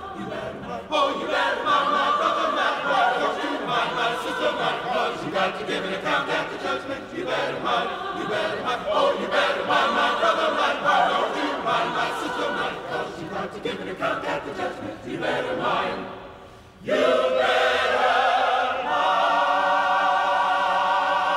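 A large mixed choir of men and women singing a spiritual a cappella. The sound drops away briefly about three-quarters of the way through, then the full choir comes back on a long held chord.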